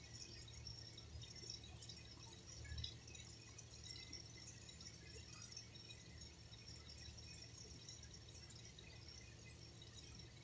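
Water dripping and trickling, with many small irregular drips over a steady low background.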